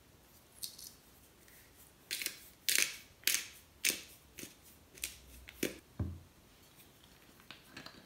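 Hand-twisted pepper grinder cracking peppercorns in a run of about eight short, sharp grinding strokes, roughly one every half second. A few faint handling clicks come before and after.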